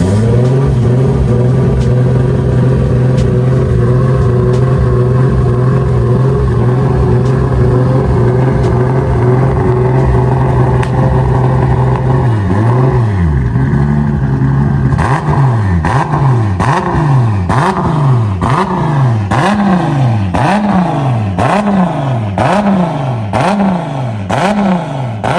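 Toyota 2JZ straight-six engine, just started, running at a steady idle for about twelve seconds, then blipped over and over, the revs rising and falling a little faster than once a second, with sharp pops at the top of many of the blips.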